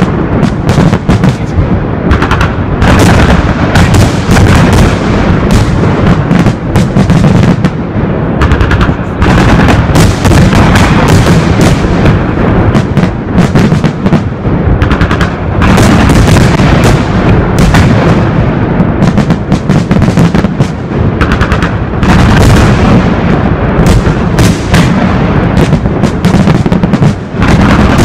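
Fireworks salute at close range: rapid, near-continuous bangs and cracks of bursting shells, very loud, with short dips in the barrage every few seconds.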